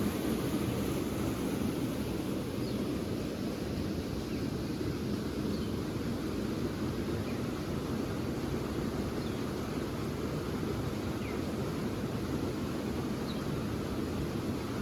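Steady rush of flowing river water at a swimming hole, with a few faint, brief high chirps.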